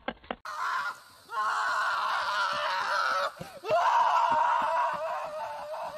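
A person screaming: two long, drawn-out, wavering screams, the first starting about a second in and the second just after the middle, with faint knocks underneath.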